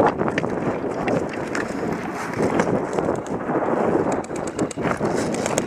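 Rustling and footstep noise from a body-worn action camera as the player moves on foot, with some wind on the microphone.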